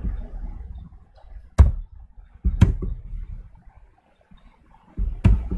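Three sharp clicks, each with a dull thump: one about one and a half seconds in, another a second later, and a third near the end, with faint room noise between.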